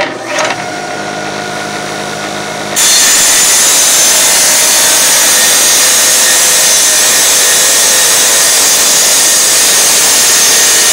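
Tile saw switched on, its motor running free with a steady hum, then about three seconds in the blade bites into the tile and a loud, steady grinding hiss of cutting takes over.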